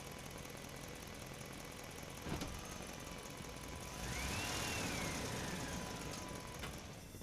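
A steady, engine-like rumble with a sharp click about two seconds in. Near the middle it swells louder, with a tone that rises and then falls.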